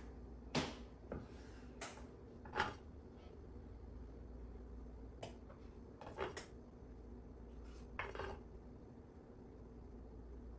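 Knife blade knocking on a wooden cutting board as maraschino cherries are sliced in half: several light, irregularly spaced knocks over a faint low hum.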